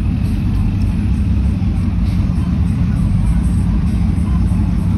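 Car road noise: a steady low rumble.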